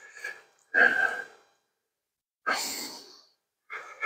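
A person's heavy breathing, several breaths about a second apart.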